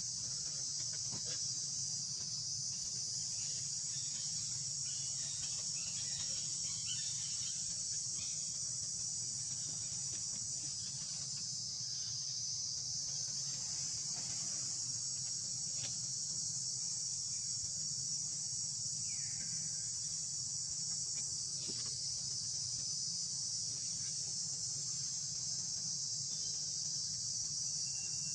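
Insect chorus in the forest, a continuous high-pitched buzz that holds steady throughout, with a faint low hum beneath it.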